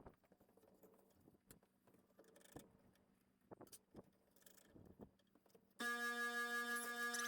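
Faint clicks and taps of handling for several seconds, then an electric drill starts abruptly near the end and runs at a steady, high-pitched whine to drill a hole in the dash panel.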